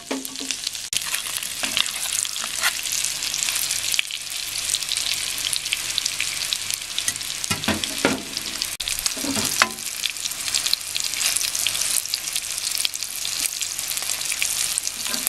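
Salmon steaks frying in hot olive oil and butter in a pan: a steady, dense crackling sizzle. Two brief louder knocks come through about eight and nine and a half seconds in.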